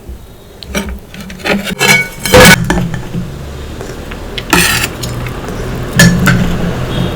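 Several clinks, knocks and scrapes of tableware, the loudest about two and a half seconds in, over a steady low hum.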